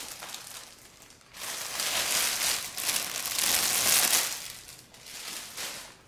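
Packaging crinkling and rustling as a part is pulled out of its box, loudest from about a second in until about four seconds in, with a quieter rustle near the end.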